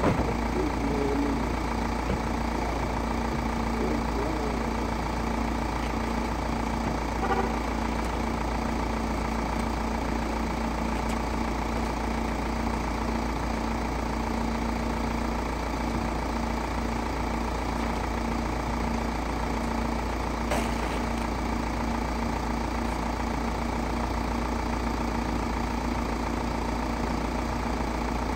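A van's engine idling steadily: a constant low drone with a steady hum, and one sharp click about two-thirds of the way through.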